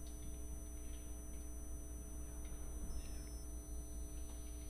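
Steady electrical hum with a constant buzzing tone, and faint scratching of a marker writing on a whiteboard partway through.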